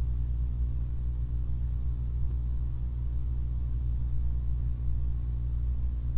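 Steady low-pitched hum with no other sound: the background noise of the recording setup.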